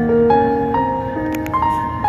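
Background instrumental music, a new held note starting about every half second.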